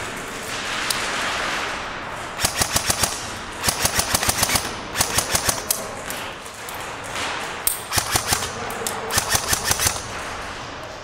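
Airsoft guns firing on full auto: several short bursts of rapid shots over a steady hiss.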